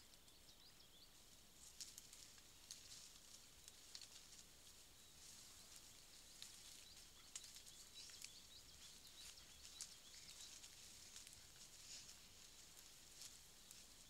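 Wild boar piglets moving through grass: faint, irregular rustling and ticking that thickens about two seconds in. A few faint high chirps near the start.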